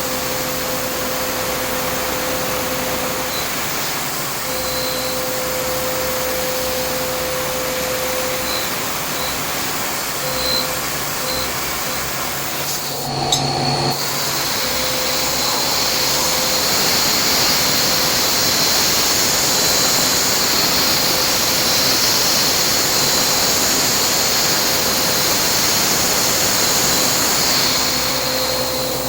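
Vertical machining centre milling carbon steel, with a steady hum and a steady cutting tone. There is a brief break about halfway, then a loud hiss of compressed air blowing on the cut until near the end.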